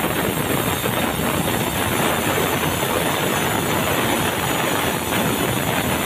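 Band sawmill running, its blade cutting lengthwise through a red meranti log as it is fed in, a steady dense mechanical noise.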